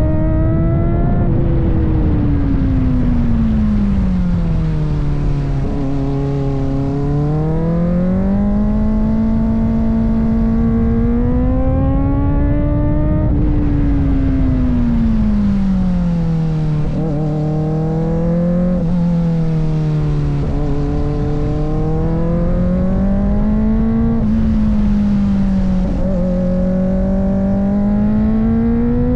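Kawasaki ZX-4RR's 399 cc inline-four engine under way, its pitch rising and falling smoothly several times as the throttle is rolled on and off. Steady wind rush lies under it.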